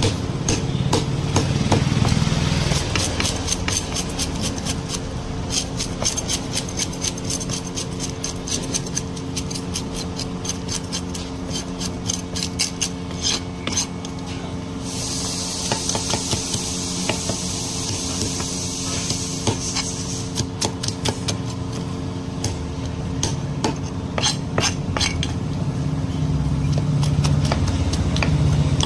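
Knife blade scraping the scales off a tilapia on a wooden chopping block: quick, repeated scrapes and clicks as the scales come off.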